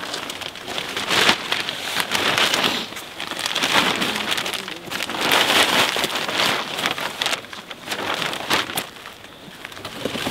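Clear plastic bag rustling and crinkling in swelling waves as a fishing net is handled in and out of it, with a few sharp crackles.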